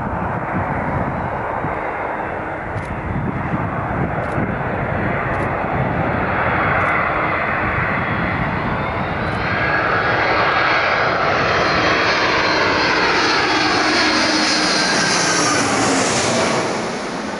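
The two General Electric CF6-80C2 turbofan engines of an Airbus A300-600ST Beluga on low final approach, growing louder as the jet closes in. Several whining tones slide down in pitch as it passes directly overhead, and the sound falls off sharply near the end.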